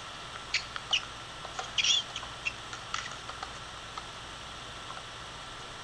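Tennis rally on an outdoor hard court: scattered short, sharp squeaks and pops from players' shoes and ball strikes. They bunch up about two seconds in and die away after about four seconds.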